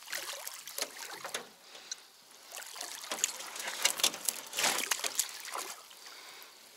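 Water splashing and dripping as a landing net and a wire keepnet holding freshly caught bream are handled at the side of a boat, with louder splashes around the middle.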